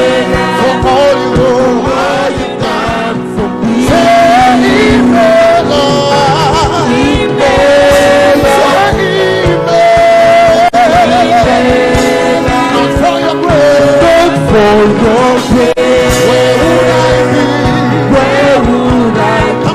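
Gospel worship singing with instrumental backing: sung notes held and wavering over a steady band, with the congregation singing along.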